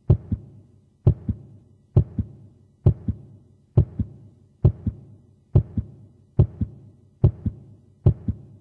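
A slow heartbeat sound effect: about ten double thumps, each a strong beat followed by a softer one, coming a little under once a second.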